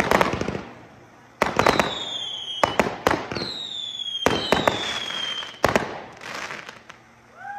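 Fireworks display: aerial shells going off in a string of loud bangs, followed by crackling. Several high whistles slide down in pitch between the bangs.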